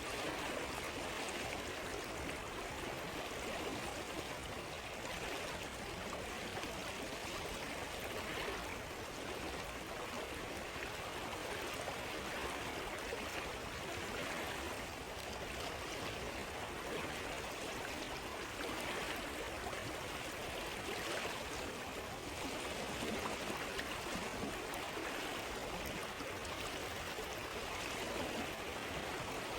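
A stream flowing steadily, a continuous rush and gurgle of running water.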